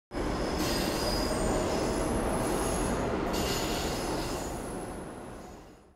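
Rumbling noise with several high, steady metallic squealing tones over it, starting abruptly and fading out over the last two seconds.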